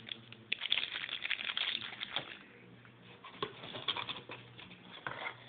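Clear plastic packaging bag around a USB data cable crinkling as it is handled, in two bouts of rustling, the second one about three seconds in.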